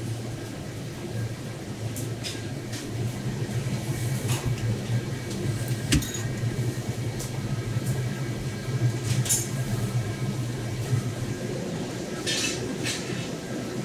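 Steady low hum of kitchen machinery under the clicks and knocks of handling. There is a sharp knock about six seconds in as a steel tray of tuna loins goes into an under-counter refrigerator, and brief scrapes near the end.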